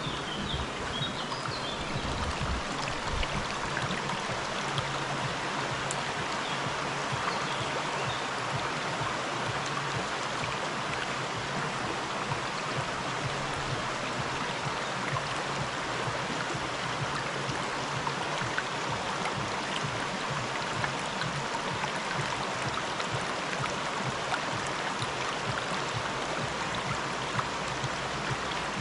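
River water flowing and rushing steadily.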